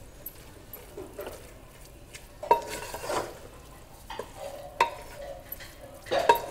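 Wooden spatula stirring and scraping jackfruit pieces through a thick spiced yogurt masala in a metal pressure cooker pot. Several separate scraping strokes, the loudest about two and a half, five and six seconds in, some with a short ring off the pot.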